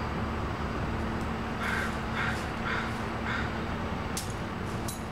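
A bird calling, four short calls about half a second apart, over a steady low background hum, with two sharp clicks near the end.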